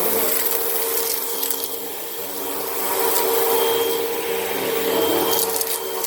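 Vacuum cleaner motor running at a steady pitch while sucking up sand and grit, which rasps and rattles through the machine.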